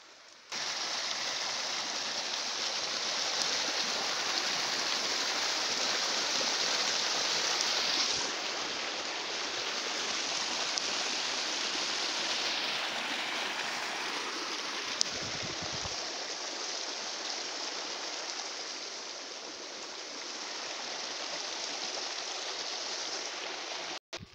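Shallow stream running over stones: a steady rush of water that starts abruptly about half a second in and stops suddenly just before the end.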